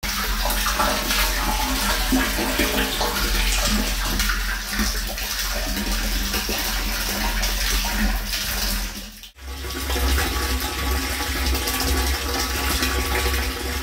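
Water pouring from a pipe into a water storage tank, splashing steadily onto the water surface, with a low steady hum underneath. The sound drops out for a moment about nine seconds in, then carries on.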